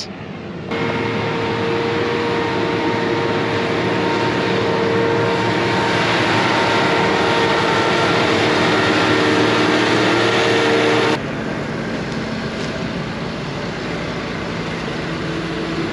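MacDon self-propelled swather running across the field, a steady machine noise with a constant whine through it. About eleven seconds in it cuts abruptly to a quieter, steady engine idle.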